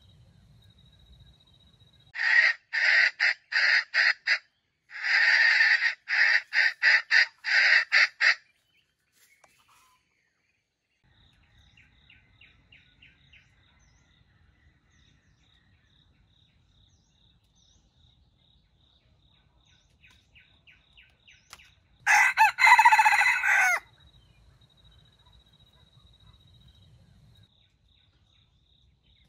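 Junglefowl rooster calling: two loud, choppy runs of crowing calls in the first eight seconds, soft clucking around 12 and 20 seconds in, and one more loud crow about 22 seconds in. A faint, steady high tone runs between the calls.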